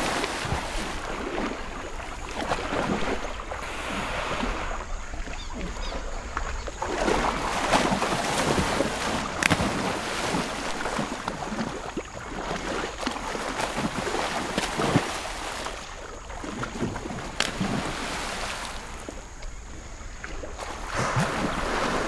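Water splashing and sloshing as crocodiles thrash and move through a shallow pool, with a few sharper splashes along the way.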